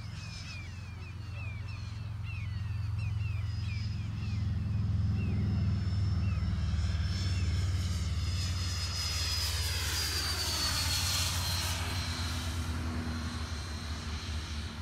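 Radio-controlled HSD F-16 jet's 105 mm electric ducted fan, run on a 12-cell battery, whining as the model flies a pass. The whine swells over the first few seconds and drops in pitch about ten seconds in as the jet goes by.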